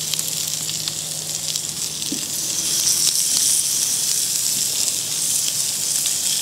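Raw turkey wings sizzling on a hot, oiled cast iron grate over charcoal: a steady crackling hiss that grows louder about three seconds in.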